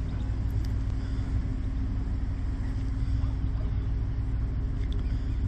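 A canal narrowboat's engine running steadily as the boat cruises slowly: an even, low hum.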